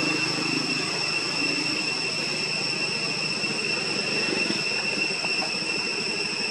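Outdoor ambience: a steady high-pitched insect drone, with a low rumble underneath.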